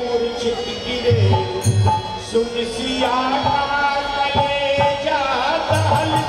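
Indian devotional music: a sustained, gliding melody with low drum beats coming in about a second in and again near the end.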